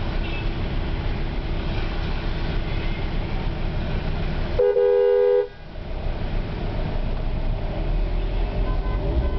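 A car horn sounds one blast of about a second, about halfway through, over the steady road rumble of a car driving, heard from inside the cabin.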